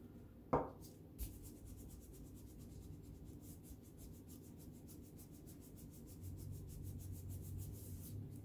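Faint, rapid scratchy rubbing of hands smoothing a freshly glued paper strip flat onto a paper collage, with one brief louder sound about half a second in.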